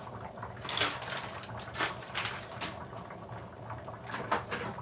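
A pot of vegetable soup boiling: a steady hiss with irregular bubbling pops and a few short clicks.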